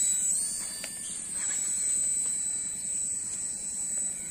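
Exceed toy helicopter's small electric motors and rotors running in flight, a steady high-pitched whine that drifts slightly up and down in pitch as the throttle shifts.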